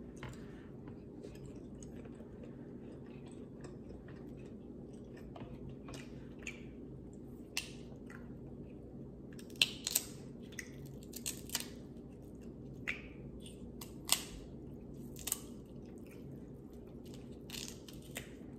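Close-up eating sounds: boiled shrimp being peeled by hand, shells cracking with wet clicks and crackles, and chewing. The clicks are scattered and come mostly in the second half, the loudest about halfway through, over a steady low hum.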